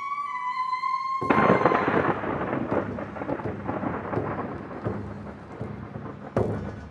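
Ambient soundtrack: a held, slightly wavering pitched note breaks off about a second in into a sudden loud crash of thunder-like rumble and crackle that slowly fades. A second sharp crack comes near the end.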